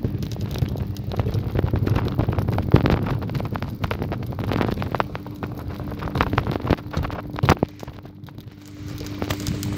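Wind buffeting the handheld camera's microphone, with rustling and knocking handling noise as the camera is carried along on foot.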